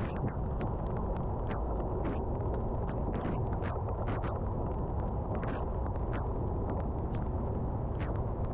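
Steady low rumble of a car driving on a wet road, with frequent, irregular sharp ticks of raindrops striking the car.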